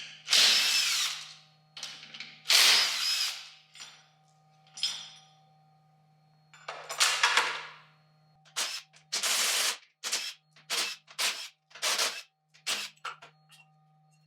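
Cordless power drill run in several bursts of about a second each, its pitch falling as it spins down, then in a quick string of short pulses from about eight seconds in.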